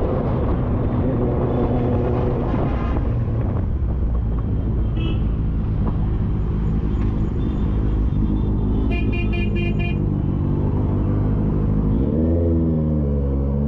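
Motorcycle engine running in slow city traffic, with a vehicle horn sounding as a quick string of beeps about nine seconds in. Near the end the engine revs up and drops back.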